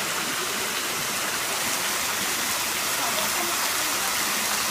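A waterfall's falling water rushing with a steady, even hiss.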